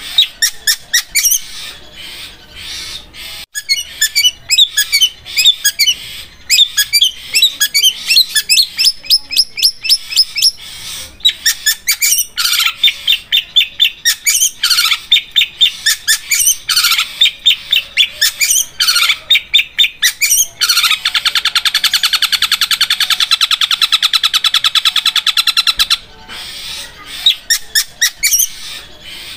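Long-tailed shrike (cendet) singing loud, fast runs of sharp repeated chattering notes. About two-thirds of the way in these run together into a continuous rapid trill like a sewing machine that lasts about five seconds.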